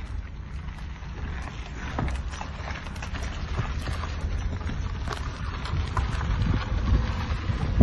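A car moving slowly along a street, heard through an open window: a low rumble of tyres and engine with wind buffeting the microphone and scattered small clicks and knocks. It grows louder toward the end.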